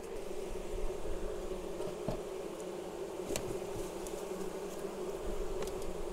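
Honeybees buzzing in a steady, even hum around an opened hive, with a few short light clicks.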